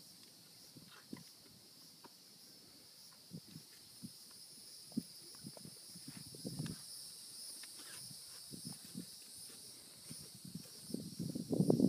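Steady high-pitched drone of insects in the background, with scattered soft knocks and rustles from the horse's tack being handled. A louder low rushing noise sets in near the end.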